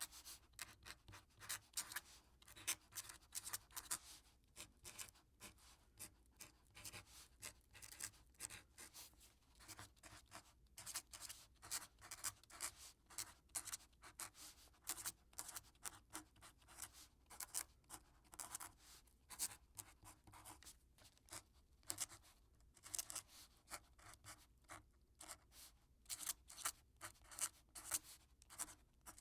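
Quill pen scratching across paper in quick, irregular strokes, a continuous run of short scratches.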